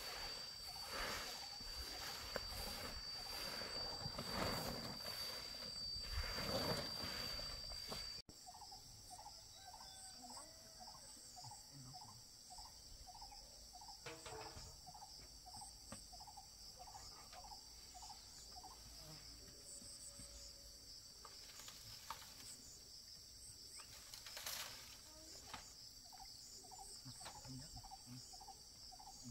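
Insects trilling steadily and faintly, with rustling and handling noise in the first eight seconds. After a cut, short calls repeat about twice a second for roughly ten seconds against the trilling.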